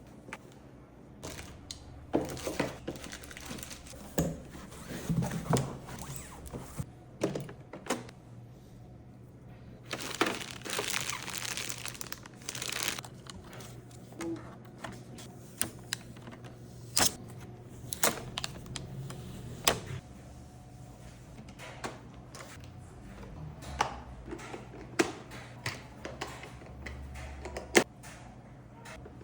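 Packaging being opened and handled: plastic wrap crinkling, cardboard and tape tearing, and sharp knocks as pieces are set down, with a longer spell of rustling about ten seconds in.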